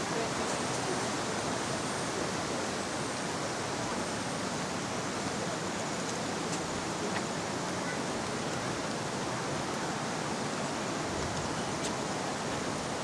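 Steady, even rush of flowing water from the falls or its river, with no breaks.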